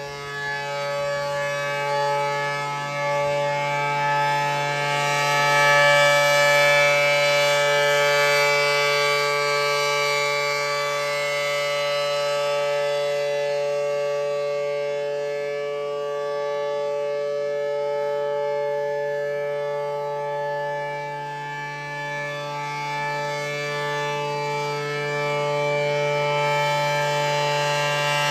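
ACA P-10 tornado siren sounding at full speed: a steady chord of tones whose loudness swells and fades slowly. It runs a little slow because of a bad run winding in its motor.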